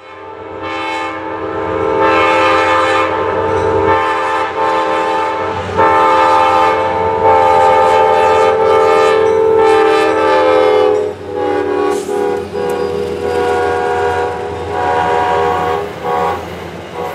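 An Amtrak diesel locomotive's multi-chime air horn sounds one long held chord as the passenger train passes at speed, then several shorter blasts in the last few seconds. The low rumble and clatter of the train runs underneath.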